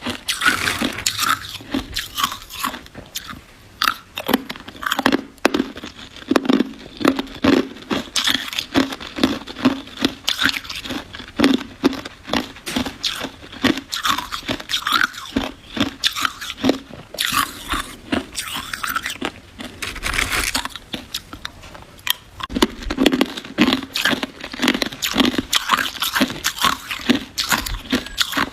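Ice being bitten and chewed close to the microphone: a continuous run of dense, irregular crunching and cracking.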